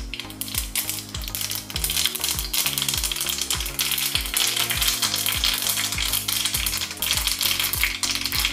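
Mustard seeds and white sesame seeds crackling and spluttering in hot oil in a small steel tadka pan, a dense rapid popping that fills out after a couple of seconds as the tempering fries.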